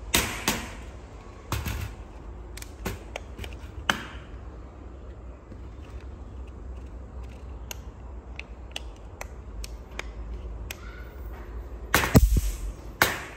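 A 3000-volt electric mosquito racket sparking through a leaf pressed against its grid, giving sharp, irregular snapping cracks. A few come in the first four seconds and a dense burst comes near the end.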